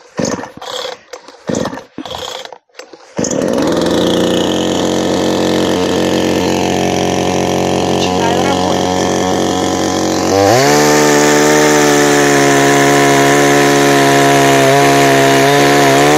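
Promo PSG 45-15 two-stroke chainsaw starting after a few short pulls of the starter cord. It catches about three seconds in and runs steadily. About ten seconds in it is throttled up to a higher, louder speed, and it sags in pitch right at the end.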